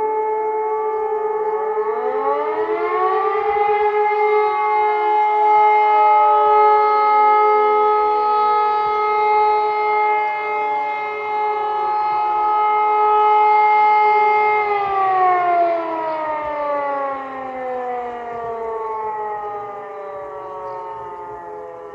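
Civil defence sirens sounding in a siren test, more than one heard together. One is already holding a steady tone, others wind up to pitch in the first few seconds, and all hold a steady tone until about two-thirds of the way in. Then they wind down together, the pitch falling and the sound fading to the end.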